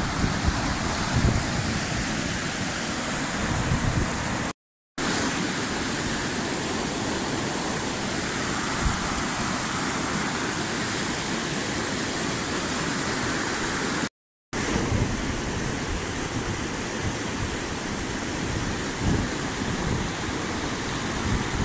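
Rushing white water of a small mountain river cascading over rock slabs: a steady roar, with wind gusting on the microphone. It breaks off to silence twice, briefly.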